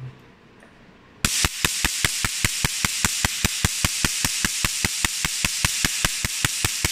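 Picosecond laser handpiece firing pulses onto a metal test plate: a steady train of sharp snaps, about five a second, over a steady high hiss, starting about a second in.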